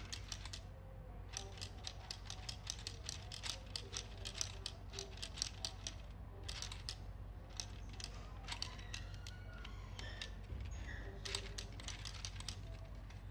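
Plastic Lego Technic gears, crankshaft and pistons of a three-piston engine model clicking rapidly as it is turned by hand, in runs with short pauses.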